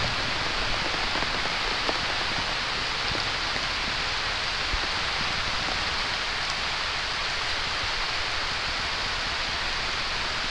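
Heavy rain pouring down on grass and leafy plants, a steady hiss of falling water.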